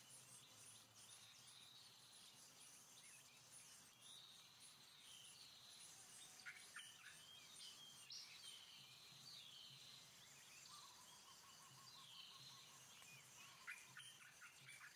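Faint forest ambience of birds chirping and calling, with short high notes and falling whistles, plus a rapid trill in the second half.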